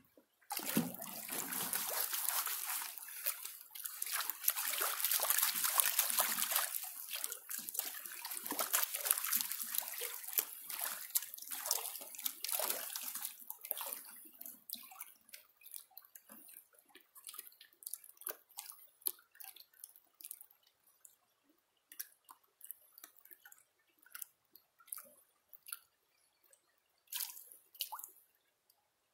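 Hands scooping gravel and creek water into a green plastic gold pan: steady splashing with stones rattling for about the first fourteen seconds, then only scattered drips and small clicks as water runs off the pan.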